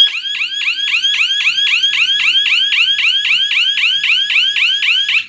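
Electronic alarm siren sounding a fast, repeating rising chirp, about four a second, as the alarm system is tested. It stops suddenly near the end.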